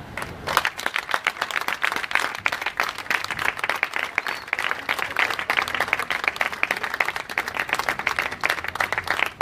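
Crowd applauding, starting about half a second in, with one person's hand claps close by.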